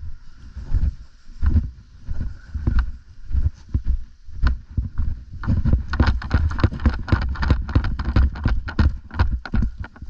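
Footsteps and the thumping and jostling of a worn camera, with wind on the microphone; from about halfway the steps quicken into a dense run of sharp crunching clicks.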